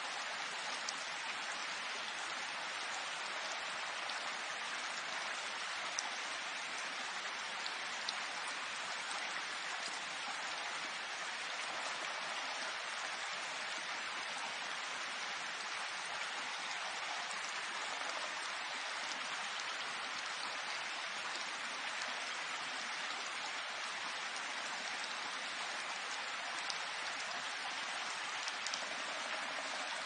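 Steady rainfall: an even, unbroken hiss of rain, with a few slightly louder ticks here and there.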